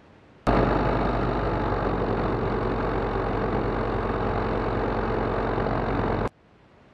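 SAM light aircraft's Rotax 912 flat-four engine and propeller running steadily at taxi power. The sound starts abruptly about half a second in and stops abruptly near the end.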